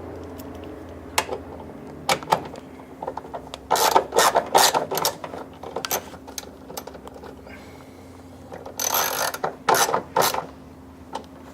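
A ratchet wrench clicking as it runs a bolt into a clean thread, in several spells of quick clicks with pauses between, over a steady low hum.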